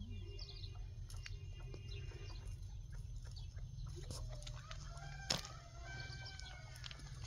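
A rooster crowing once: one long arched call beginning a little past halfway, over a steady low rumble. A single sharp knock comes just as the crow starts.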